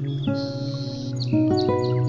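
Slow ambient music of held, sustained notes, with new notes entering a few times, mixed with birds chirping in short, high calls.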